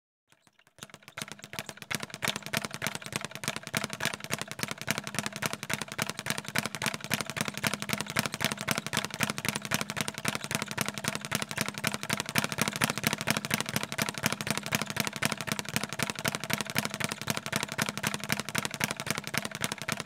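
Boxing speed bag being punched in a fast, steady rhythm, the bag rattling rapidly against its rebound platform. It starts under a second in and keeps going without a break.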